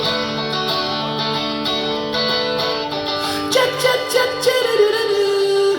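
A song performed live: a plucked-string instrument over held chords, with a wavering sung or melodic line coming in about three and a half seconds in.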